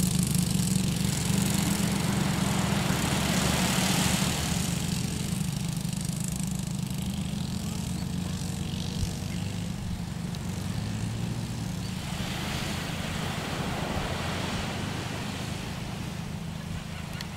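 Engines of quad bikes (ATVs) droning steadily as they ride off along the sand, slowly fading with distance.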